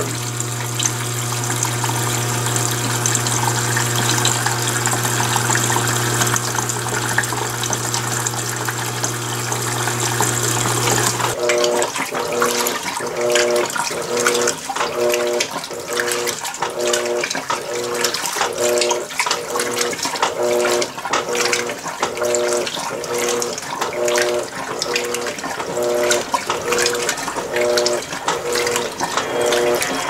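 Electrolux LWI13 washing machine filling with water for its first rinse, water running into the tub over a steady low hum. About eleven seconds in the hum stops and short pitched motor strokes take over, repeating evenly a little over once a second over the sloshing water, as the machine agitates the rinse.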